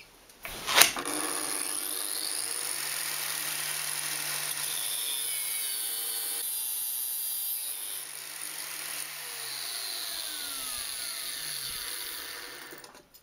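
Angle grinder fitted with a worn-down Falc cut-off disc cutting steel tube on a cutting stand: a sharp knock about a second in, then a steady loud grinding that eases briefly in the middle and dies away near the end. The small worn disc is not big enough to cut through in one pass.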